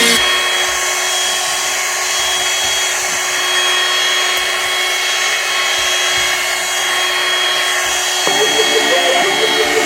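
Vacuum cleaner running steadily, a constant rush of suction with a steady motor whine.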